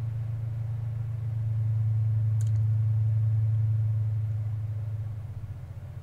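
A steady low hum, dropping in level and turning fluttery near the end, with a single light click about halfway through.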